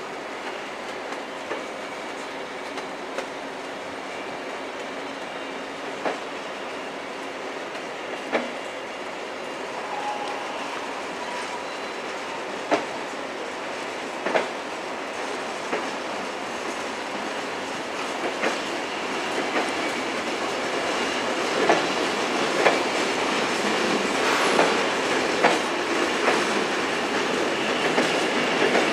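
Corail passenger coaches of an Intercités train rolling past at low speed, with wheel clacks over the rail joints at uneven intervals. The rolling noise grows louder over the last third.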